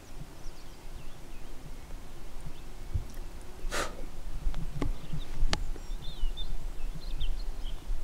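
Faint chirps of small songbirds over a steady low rumble, with one short breathy burst of noise just before four seconds in and two sharp clicks a second or so later.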